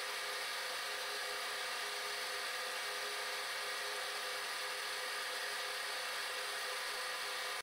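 Vertical milling machine running steadily with a 1/4-inch four-flute end mill turning at about 300 RPM, milling a small flat on a round shank. It makes an even hum with several held tones at a constant level.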